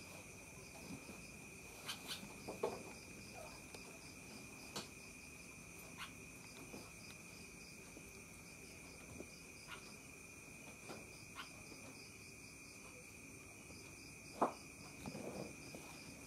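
Crickets chirping steadily in a high, continuous trill, with scattered short clicks and taps; the loudest tap comes about fourteen seconds in, followed by a few softer ones.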